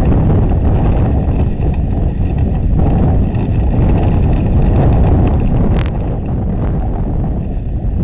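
Wind buffeting an outdoor nest camera's microphone: a loud, steady low rumble with a brief higher sound about six seconds in.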